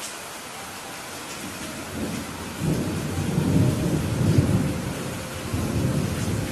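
Heavy rain falling steadily, with a rumble of thunder that builds about two seconds in, swells, and dies away near the end.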